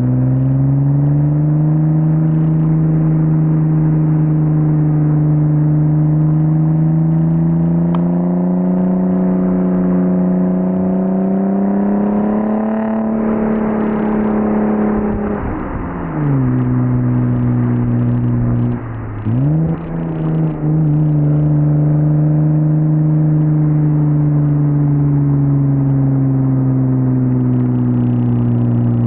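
Audi S4 B5's 2.7-litre twin-turbo V6 pulling through the gears: the revs climb slowly for about thirteen seconds, fall away as the throttle is lifted, dip sharply and recover once in a quick gear change, then climb again and level off.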